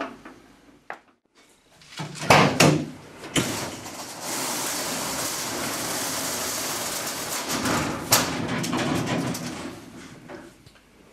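Aluminium SmartBoxx sliding cargo drawer rolling along its track in a pickup bed. A few knocks about two seconds in, then a steady rolling noise for about four seconds, then rougher, uneven rolling.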